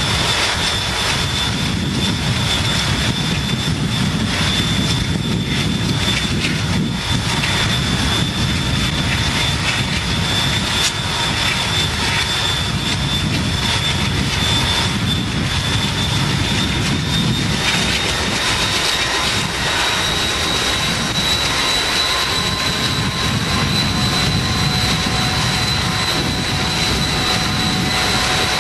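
Steady rushing wind and road noise from a car driving alongside a freight train, mixed with the running of the Southern Pacific diesel locomotives. A faint high whine holds throughout and rises slightly in pitch about two-thirds of the way through.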